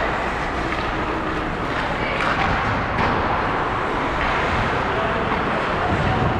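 Hockey skate blades gliding and scraping over the ice in repeated strides, heard up close from a player's helmet-mounted camera, over a steady rush of noise.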